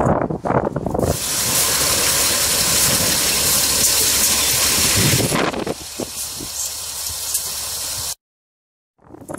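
Steady loud hiss of noise that eases a little after about five seconds, then breaks off into a second of dead silence near the end.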